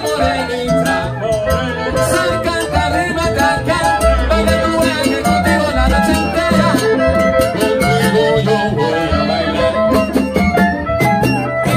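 Live salsa band playing an instrumental passage, with a repeating bass line and percussion strikes under held melody notes.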